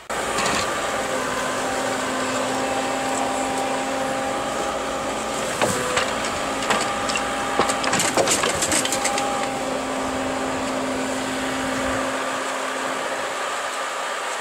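Jarcrac Dual tracked forwarder running steadily while its hydraulic loader works, with a cluster of knocks and clatter from the grapple and pulpwood logs around the middle.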